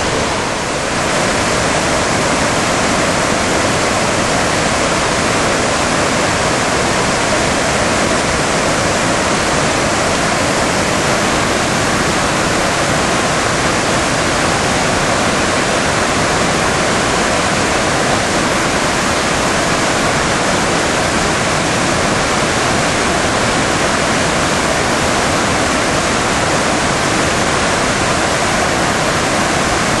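Kuang Si Falls, a tiered waterfall cascading over rock ledges: the steady, even rush of falling water.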